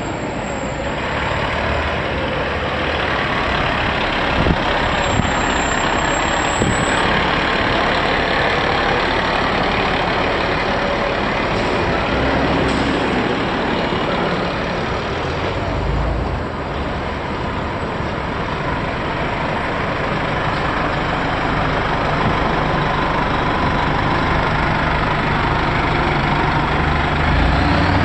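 FDNY fire engine's diesel engine running as the truck moves slowly past at close range, over the steady noise of street traffic.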